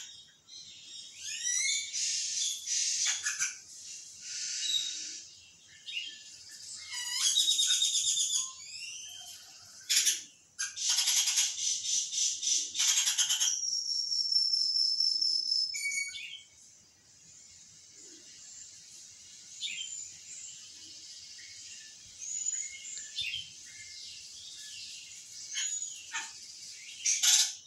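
Bird calls from a nature film playing on a television: a busy chorus of chirps, trills and whistles, with one long held whistle, then only scattered chirps over the second half.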